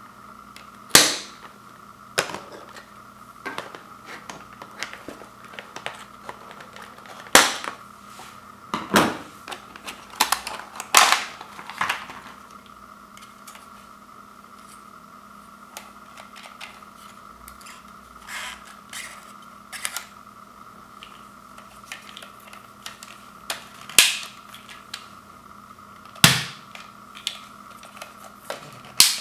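Scissors snipping the cardboard and plastic ties of a toy dart blaster's blister pack, and the plastic blaster being handled: a dozen or so sharp snips and clicks spread irregularly, over a faint steady hum.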